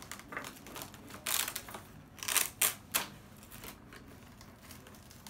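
Kite fabric rustling and scraping as the biplane kite's parts are handled and pressed into place, in a few short scratchy bursts around the middle, the last three in quick succession.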